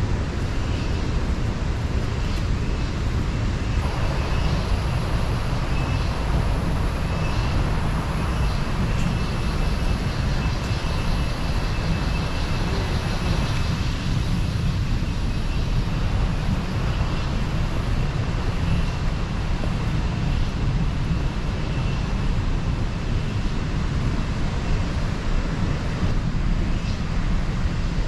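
Steady rushing noise with a heavy, uneven low rumble: wind buffeting the action camera's microphone while it is carried along the path.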